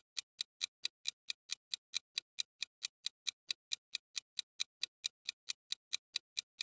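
Countdown-timer sound effect: a clock ticking steadily, about four to five sharp ticks a second.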